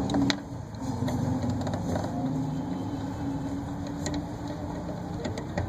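A vehicle engine running steadily at a low hum, with a few light clicks and knocks.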